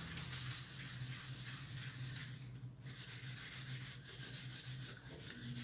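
A soapy steel wool pad scrubs a stained aluminium lid, scouring off the stains in a quick run of rough rubbing strokes that pause briefly about two and a half seconds in.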